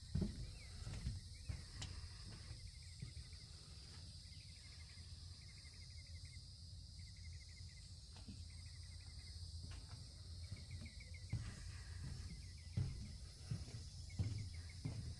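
Outdoor insects buzzing steadily at a high pitch, with short trills repeated many times, over a low wind rumble and a few soft knocks that come more often near the start and the end.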